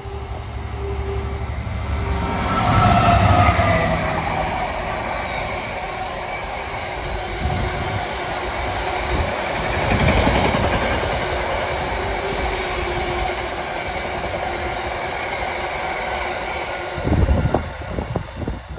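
Diesel-hauled freight train passing close by: the locomotive's engine note swells and drops in pitch as it goes past, then a long run of wagons rumbles and clatters rhythmically over the rail joints. Near the end a sharper loud clatter comes before the sound fades away.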